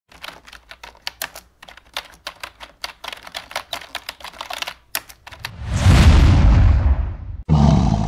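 Intro sound effects: rapid, irregular typing-like clicks for about five seconds, then a loud, deep, noisy whoosh that swells and fades. It cuts off suddenly near the end into a second loud hit.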